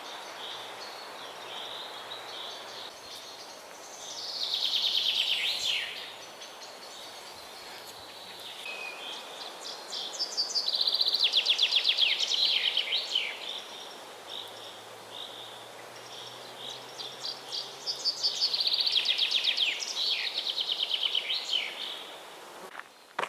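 A songbird singing three loud, rapid trilled phrases, each about two seconds long and dropping in pitch at the end, spaced about seven seconds apart. Fainter short bird calls come in between, over a steady background hiss.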